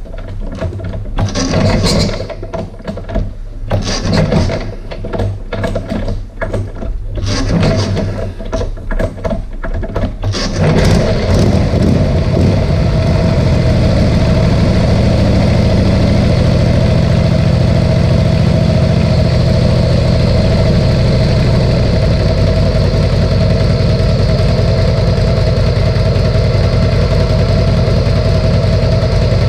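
1958 Harley-Davidson Panhead Duo-Glide V-twin engine catching about ten seconds in, then running steadily and settling at idle. Before it, uneven knocks and thumps.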